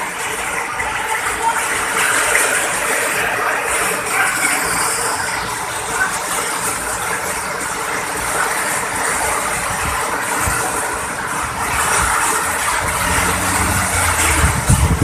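Rain falling, a steady even hiss, with a low rumble building near the end.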